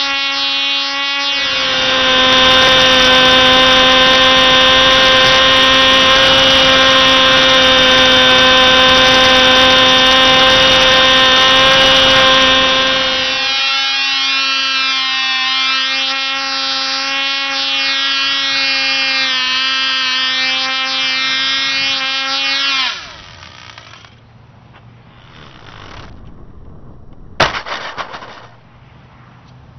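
Cox .049 glow engine of a control-line model plane running flat out as a steady, high-pitched buzz with a loud rushing noise over it for the first dozen seconds. From then on the pitch rises and falls over and over as the plane circles. About 23 seconds in the engine cuts out, its pitch sliding down, and a sharp click follows near the end.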